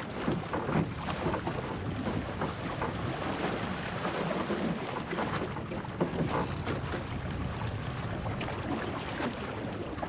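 Wind buffeting the microphone over water rushing along the hull of a small sailing skiff moving fast, around 11 to 12 knots. A short, sharper hiss cuts through about six seconds in.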